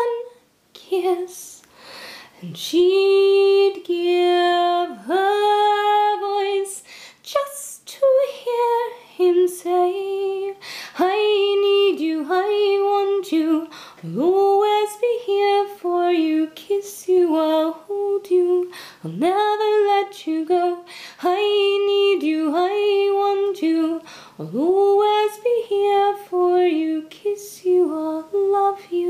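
A woman singing unaccompanied: a slow melody of held notes, many of them slid up into from below.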